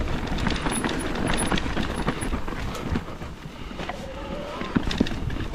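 Mountain bike descending a rough dirt trail: a steady rumble of tyres over the ground, with many quick clicks and knocks of the bike rattling over bumps.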